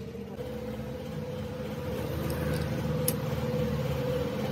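A motor or engine running steadily with a low hum and one held tone, slowly growing louder; a light click about three seconds in.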